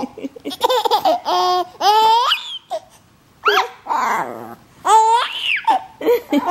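Baby laughing, in repeated short bursts of high, rising squeals with brief gaps between them.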